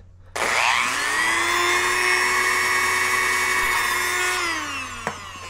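Dremel rotary tool with a cutoff wheel switched on: its small motor spins up to a steady high-pitched whine, then winds down with falling pitch after it is switched off. There is a single click as it slows.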